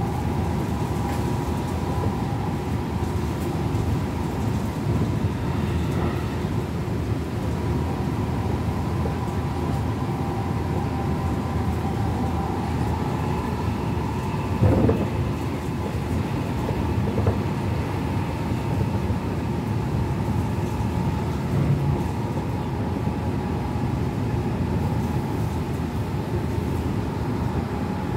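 Running noise inside a Tokyo Metro 18000 series electric train: a steady rumble of the wheels on the rails with a steady whine on top. One knock about halfway through, and a couple of softer ones later.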